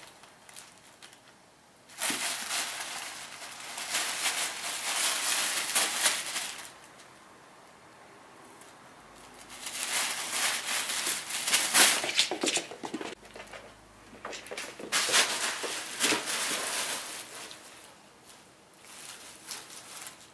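Tissue paper rustling and crinkling as a cat rolls and pounces in it, in three long bursts with a fainter one near the end.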